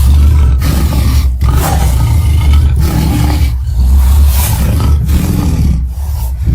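Tyrannosaurus rex roar sound effect: a run of loud, deep roars, about five, with short breaks between them.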